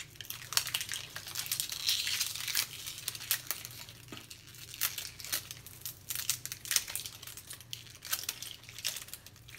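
Two LOL Surprise Lil Sisters balls being peeled open by hand: the plastic wrapping crinkles and tears in many small, irregular crackles.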